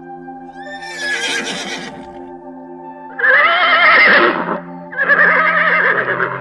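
Horse whinnying three times over soft steady background music; the first call is fainter and falls in pitch, and the last two are louder, with a wavering pitch.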